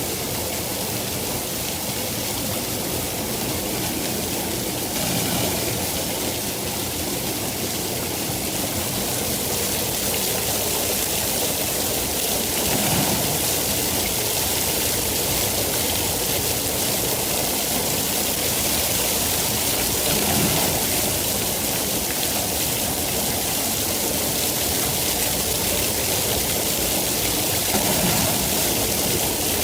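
Steady rain, a dense even hiss with slight swells in loudness every several seconds.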